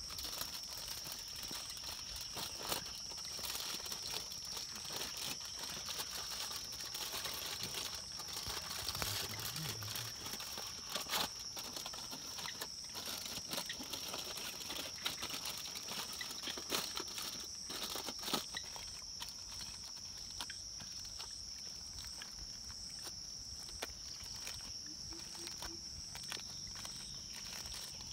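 Aluminium foil crinkling and crackling as it is folded and crumpled by hand, busiest in the first two-thirds and quieter near the end. A steady high-pitched tone runs underneath.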